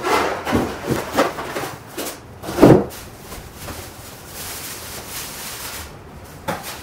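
Clear plastic wrapping rustling and crinkling as a smart bike trainer is lifted out of its foam packing and unwrapped, with several short knocks and one louder thump a little under three seconds in.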